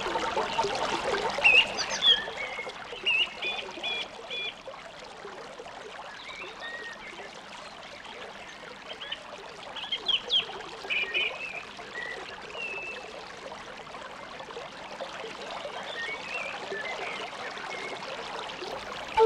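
Running water of a stream, a steady rushing hiss, with small birds chirping now and then in short high notes, most noticeably in the first few seconds and again about ten seconds in.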